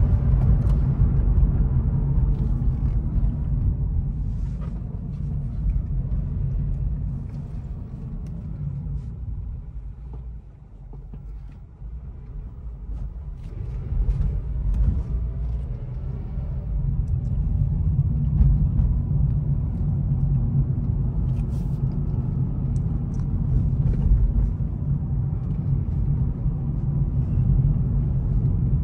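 A 2009 Honda Civic on the move, a steady low rumble of engine and road noise. It eases off to a low point about ten seconds in, then climbs back as the engine pitch rises again.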